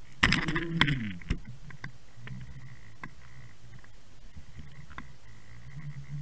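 Underwater knocking and scraping against an action-camera housing on a jigging line. In the first second there is a loud cluster of knocks with short wavering low tones, ending in a sharp knock; after that come scattered faint clicks over a low hum.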